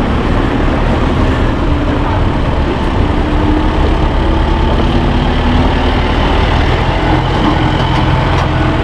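Farm tractor's diesel engine running steadily as it drives past close by, towing a covered passenger wagon.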